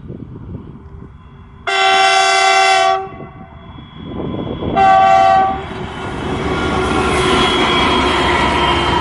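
Indian Railways locomotive horn sounding a blast of just over a second, then a shorter blast about five seconds in. The train's running noise then builds into a loud, steady rumble as it passes.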